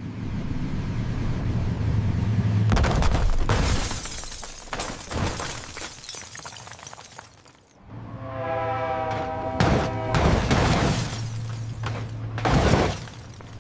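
Car crash sound effects: a low rumble, then a loud smash with breaking glass about three seconds in and a few more crunching hits. After a short lull comes a held pitched squeal, then more crashes near the end.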